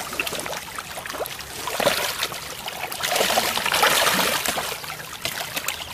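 A dense shoal of fish thrashing and splashing at the water's surface in a feeding frenzy over thrown food. It is a continuous mass of small slaps and splashes, and it swells louder about three seconds in.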